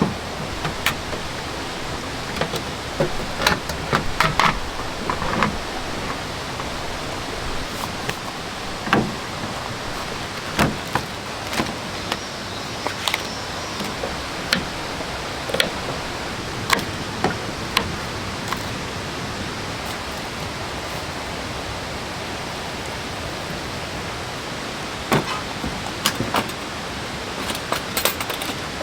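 Steady rush of a waterfall and stream, an even hiss of running water, with scattered short sharp sounds over it.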